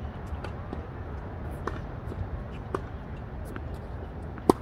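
Tennis rally: a few sharp knocks of the ball off rackets and the hard court, the loudest a close racket hit near the end, over a steady low rumble.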